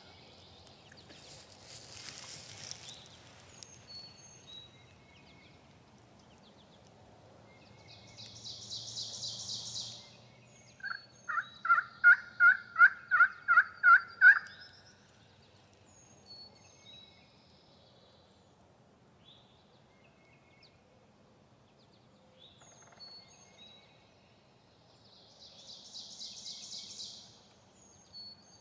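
A run of about eleven turkey yelps, evenly spaced at about three a second, about eleven seconds in. Small songbirds chirp and give two short high trills around it.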